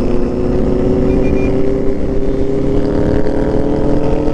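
Motorcycle engine running steadily under way, its pitch drifting slowly, with a low rumble from wind on the microphone.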